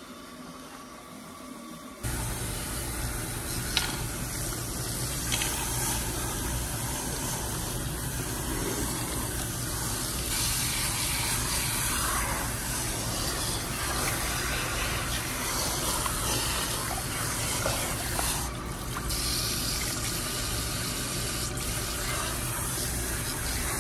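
Water spraying steadily from a salon shampoo-bowl sprayer as hair is rinsed; it comes on suddenly about two seconds in.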